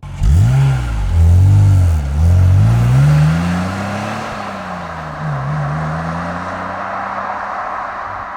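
BMW Z3's 3.0-litre M54 straight-six accelerating hard under full throttle. The revs climb and drop back twice in quick succession, like upshifts, then climb once more and ease off into a steadier drone as the throttle comes back.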